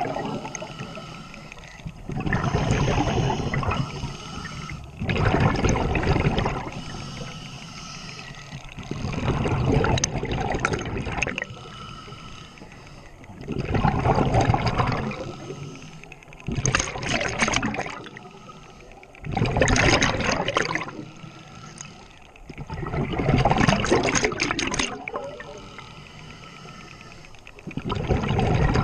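Scuba diver breathing underwater through a regulator: regular breaths, each ending in a burst of bubbling exhaust, about every three to four seconds.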